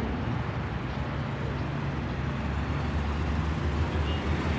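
Steady low engine hum with the general noise of road traffic.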